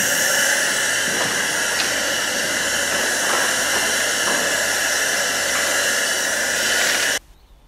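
A steady, loud hiss, like compressed air escaping, that cuts off suddenly about seven seconds in.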